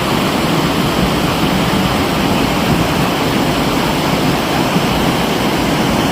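Steady, loud rush of water, like a torrent of floodwater or very heavy rain.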